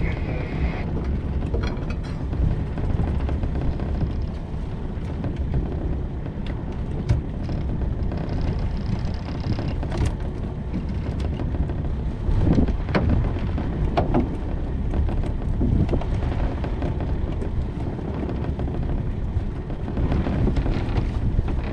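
Steady low rumble of a small fishing boat sitting at sea, with a few short knocks and rattles from the rod and tackle being handled around the middle.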